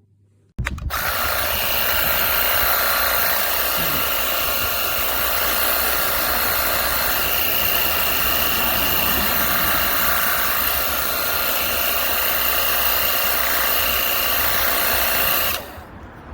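WORX HydroShot cordless pressure washer running: its motor and pump hum steadily under the hiss of the water spray. It starts suddenly about half a second in and cuts off shortly before the end.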